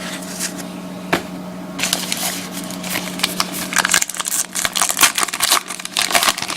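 Trading-card pack wrapper crinkling and rustling, with cards being handled. The sound starts as a few light clicks, then turns into a busy run of small crackles and clicks from about two seconds in.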